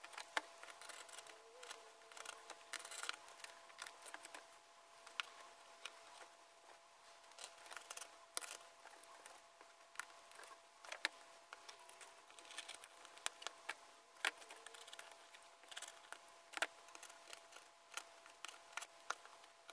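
X-Acto craft knife cutting through stretched canvas: faint, irregular scratching and clicking strokes as the blade drags and snaps through the fabric. A faint steady hum sits underneath.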